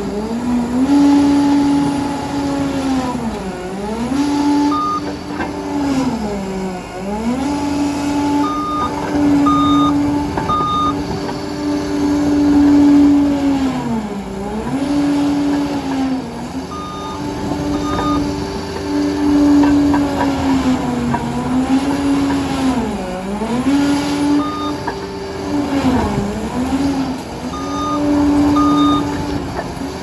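Liebherr 746 crawler dozer working: a loud, steady machine whine that sags in pitch and climbs back again several times, with a reversing alarm beeping in short groups of one to three beeps at several points.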